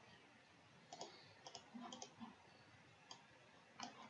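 Several faint computer mouse clicks, scattered over near silence.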